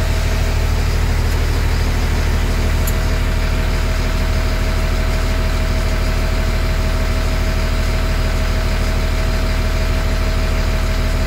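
LMTV's diesel engine idling steadily, heard from inside the cab, with a steady high tone over its low rumble.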